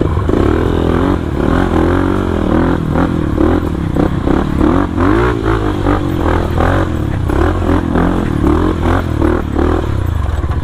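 Yamaha WR155R's single-cylinder four-stroke engine, ridden off-road, its engine speed rising and falling over and over with throttle changes, with repeated short clattering knocks.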